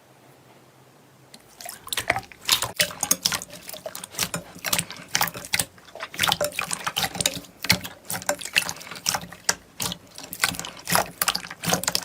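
Slime being squeezed and kneaded by hand, giving dense, irregular wet clicks and pops that start about a second and a half in.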